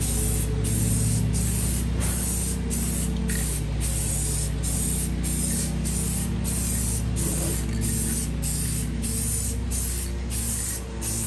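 Aerosol spray-paint can hissing in a run of short passes, about one or two a second with brief breaks between them, over a steady low hum.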